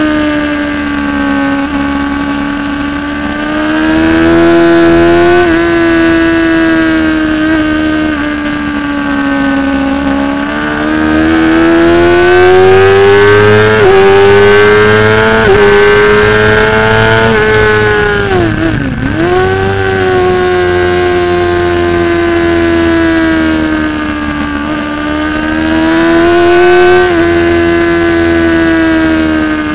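600 cc supersport racing motorcycle engine at high revs, heard on board while lapping the circuit. The note climbs and falls, with several sudden jumps in pitch and one brief deep dip about two-thirds through.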